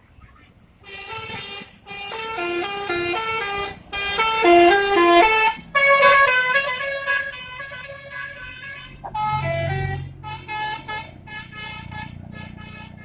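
Bus telolet horn (a Basuri multi-tone musical air horn) playing a tune of stepped notes that go up and down. About nine seconds in, a low engine rumble comes in, followed by a run of short, quick toots.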